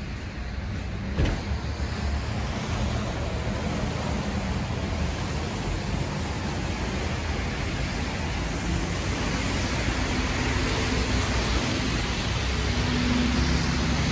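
City street traffic: a steady hiss of cars passing on a wet road, growing louder towards the end, with a single sharp knock about a second in.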